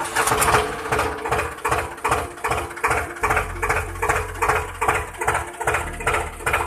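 Small electric motor and gears of a homemade miniature toy tractor running as it drives on sand. It makes a low hum with a faint steady whine and a rhythmic clatter of about five beats a second.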